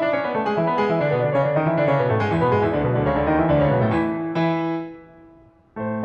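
Piano playing quick, flowing runs of notes. About four seconds in, it settles on a held chord that fades almost to silence. A new chord comes in just before the end.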